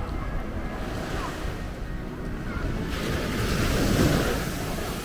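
Ocean surf: waves washing onto the beach, with one swell building about three seconds in and peaking near four seconds before easing, and wind buffeting the microphone.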